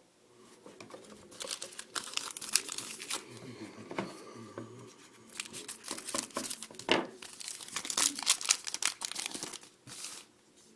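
A pack of 2013-14 Titanium hockey trading cards being torn open, its wrapper crinkling and crackling in uneven bursts.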